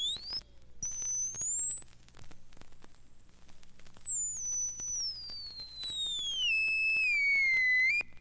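High electronic sine-wave tone sliding in pitch. It breaks off briefly near the start, climbs very high over the next few seconds, then falls slowly and cuts off just before the end.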